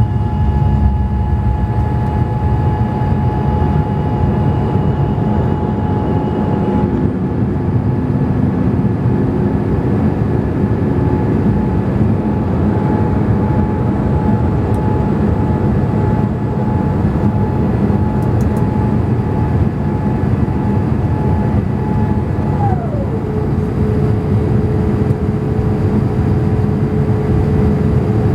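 Boeing 787 cabin noise on approach: a steady rumble of engines and airflow with a clear whine from the hydraulic system. About twenty-three seconds in, the whine glides down to a lower pitch and holds. The uploader takes it for hydraulic noise probably set off by the flaps after deployment.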